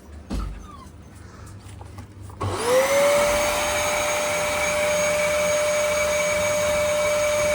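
A vacuum cleaner is switched on about two and a half seconds in. Its motor spins up with a rising whine, then runs steadily with a high whine over rushing air. A dull thump comes shortly before, near the start.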